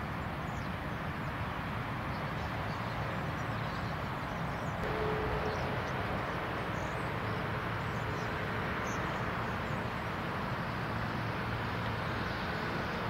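Steady outdoor background noise: an even hiss over a low hum, with a brief faint tone about five seconds in.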